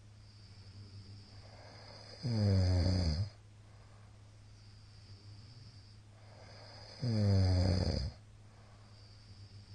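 A middle-aged man snoring loudly in his sleep: two long snores about five seconds apart, each sliding down in pitch. A steady low hum runs underneath.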